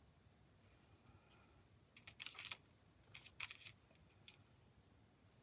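Near-quiet room with two short scratchy handling noises, about two and three and a half seconds in, and a faint tick after four seconds, as small craft pieces and tools are moved about on the work surface.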